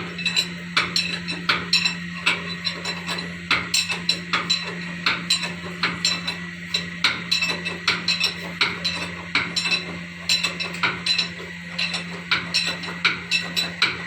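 Metal-on-metal tapping and clinking, several irregular strikes a second, from hand tools worked against engine parts while a piston is being fitted, over a steady low hum.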